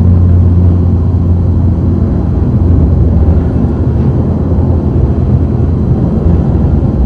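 A loud, steady low rumble with a deep hum under it, and no speech.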